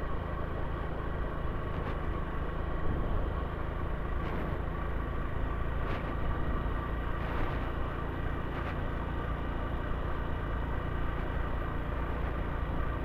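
Motorcycle engine running steadily while riding, with a constant low rumble and a thin steady whine.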